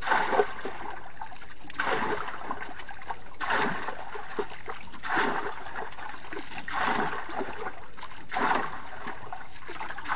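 River water scooped up with a hand dipper and poured into the boat's open fish well, one splash and pour about every second and a half, topping up the water for the caught snakehead.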